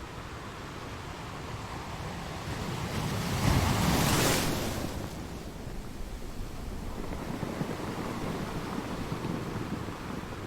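Waves washing against stones, with one wave breaking in a loud crash about four seconds in, then falling back to a steady wash.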